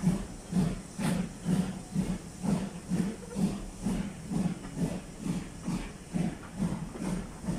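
Steam exhaust beats of the Ivatt Class 2MT tank locomotive No 41241 hauling a train away, a steady chuff with hiss at about two beats a second.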